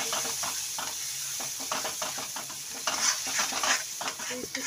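A metal spoon stirring and scraping a thick spinach-and-tomato purée around a stainless steel kadhai, over a steady sizzle of the purée frying in hot oil and spices. The scraping strokes get louder and quicker about three seconds in.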